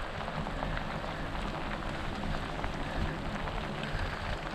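Heavy rain falling on a rocky riverbank: a steady hiss of rain thick with small, quick taps of drops.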